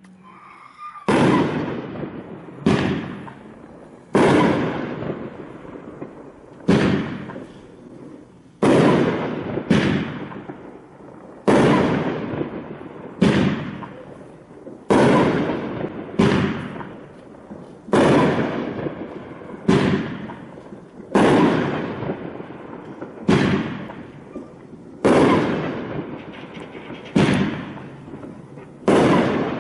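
Topgun Aqua Thunder fireworks going off: about seventeen sharp booms, one every one and a half to two seconds, each trailing off into a fading crackle before the next.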